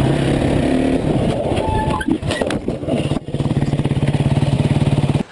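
Dirt bike engine running loud and steady, broken about two seconds in by a clatter of knocks as the bike crashes into a car. About three seconds in the engine settles into a steady, evenly pulsing run.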